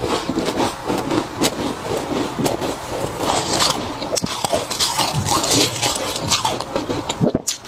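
Close-miked chewing of frost: a dense, irregular run of crunches and crackles as the icy frost is bitten and ground between the teeth.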